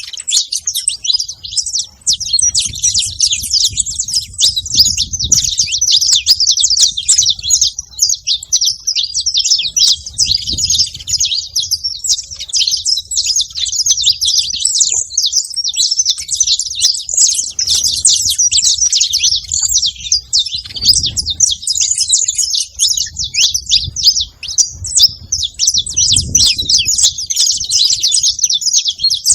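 Saffron finches chirping, a dense, unbroken chatter of short high notes.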